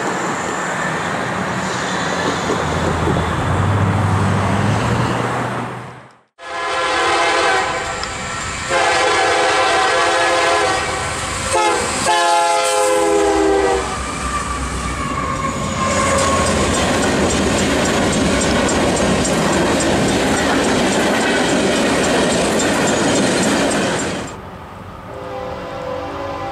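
A freight train's diesel locomotive air horn sounds several chords in long, long, short, long blasts, the last one dropping in pitch as the locomotive passes. The horn gives way to the steady rumble and wheel clatter of the train rolling by. The sound opens with a steady rumble that cuts off suddenly about six seconds in, and a horn starts again near the end.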